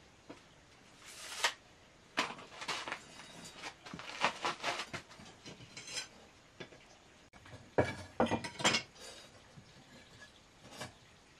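Metal tools and steel wire clinking and scraping against each other on a wooden plank, in irregular bursts of short sharp clinks.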